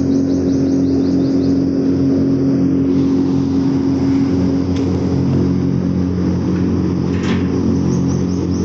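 Mine ventilation fan running with a steady drone, a strong low hum of several steady tones over a rushing roar of air.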